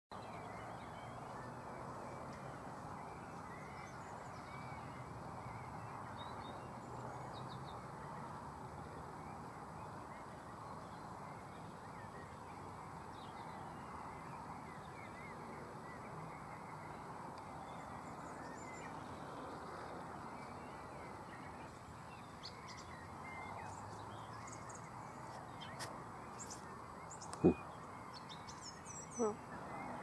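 Small birds chirping now and then over a steady background hum, with a sharp click near the end.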